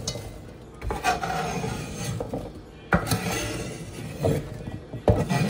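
Chopped vegetables being scraped off a wooden cutting board into a metal pot, in three scraping sweeps with pieces knocking into the pot.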